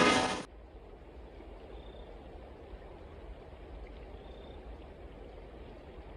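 A train horn chord cuts off about half a second in. It gives way to faint, steady outdoor ambience of a river flowing, with a low rumble and a few brief, high chirps.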